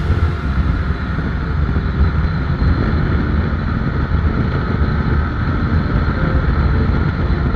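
A vehicle's engine running steadily, a dense low rumble.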